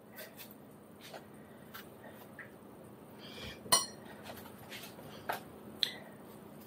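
Quiet knife work cutting fresh strawberries by hand, with scattered light clicks and taps and one sharper clink a little past halfway.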